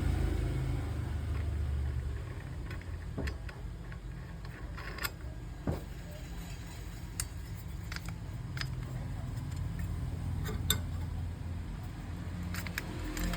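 Scattered light clicks and clinks, a dozen or so spread irregularly, over a steady low rumble.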